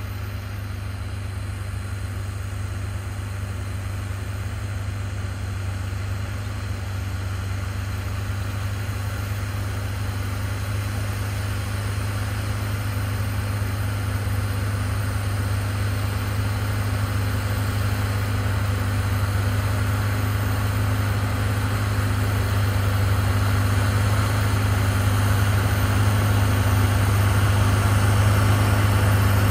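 Deutz-Fahr Agrotron X720 tractor's six-cylinder diesel running steadily under load while pulling a rotary tiller through the soil, a deep, even drone that grows gradually louder as the tractor approaches.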